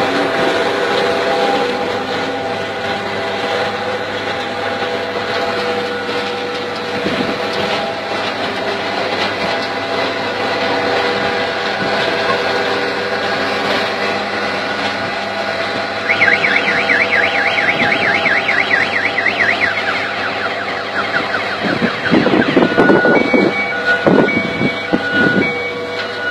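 Carrot harvester running: a steady machine drone with several steady tones from its drive and lifting belts. About two-thirds of the way in a rapid warbling tone sounds for a few seconds, then louder knocking and short repeated beeps follow near the end.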